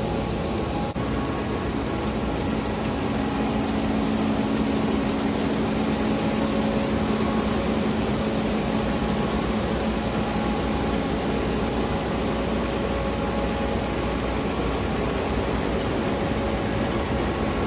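A large engine running steadily, a constant low hum under an even rushing noise.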